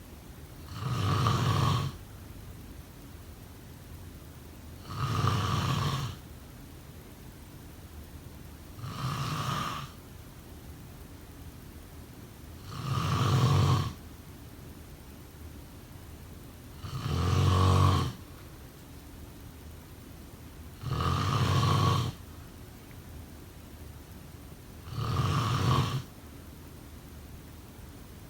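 A sleeping person snoring in a slow, even rhythm: seven snores about four seconds apart, each lasting about a second, with a steady faint hiss between them.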